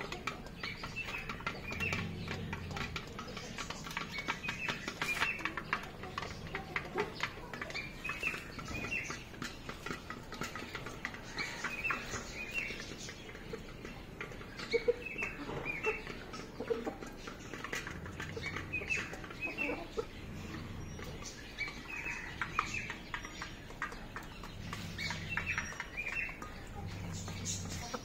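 Chickens calling softly in clusters of short high chirps, with light clicks of beaks pecking at steel water bowls. A low rumble comes and goes a few times.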